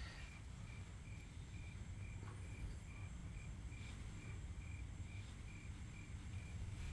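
Faint cricket chirping in an even rhythm, a few chirps a second, over a low steady background hum.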